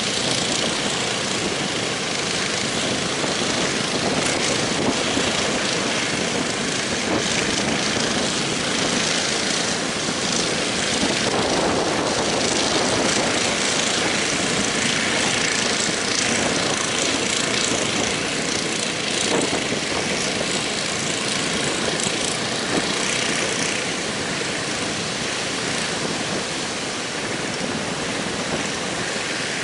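Heavy surf breaking and washing ashore, with strong wind buffeting the microphone, making a loud, steady roar that swells and eases slightly.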